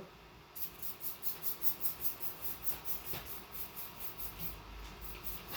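Rapid scratchy brush strokes, about four or five a second, as soapy water (Dawn and water) is brushed onto a tire bead to lubricate it for the tire changer.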